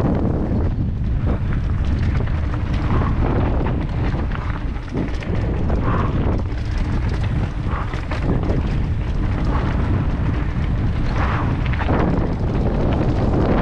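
Mountain bike rattling and clattering over rough trail at speed, with heavy wind buffeting the camera microphone and a few short squeaks now and then.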